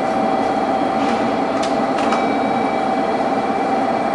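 Steady running noise inside a train carriage: a constant hum with a few steady tones over a rushing haze, with two faint clicks about midway.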